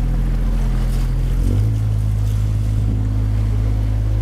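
Canal tour boat's motor running steadily with a low hum, its note shifting slightly about a second and a half in.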